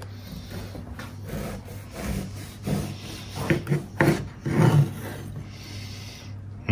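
Long bread knife sawing back and forth through a sesame-crusted whole-grain loaf on a wooden cutting board, the crust rasping on each of several strokes.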